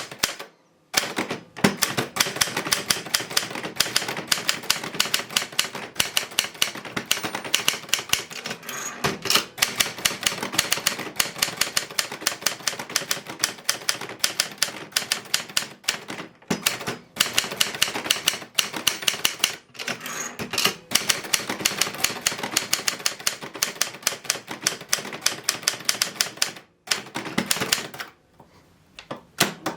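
1957 Adler Special standard manual typewriter being typed on steadily: a fast run of sharp key strikes with a few short breaks and a longer pause near the end.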